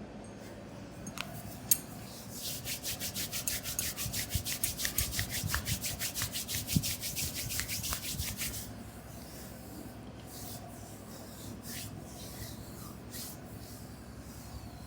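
Hands rubbing fast back and forth over oiled skin in a back and shoulder massage, about six strokes a second for some six seconds, then slower, softer rubbing. A single sharp click comes just before the fast rubbing starts.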